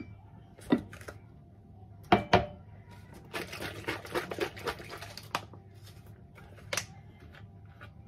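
Kitchen handling sounds: about two seconds in, two sharp knocks as a drinking glass is set on the counter. Then about two seconds of plastic crinkling and rustling as a spout pouch of carrot juice is shaken. Near the end there is a single click.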